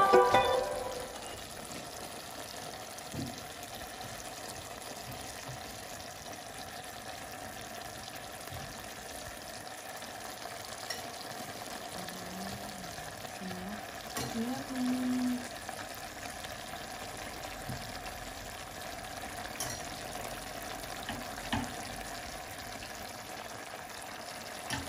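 Chicken cooking in a pot of sauce on a stove, sizzling with a steady faint hiss.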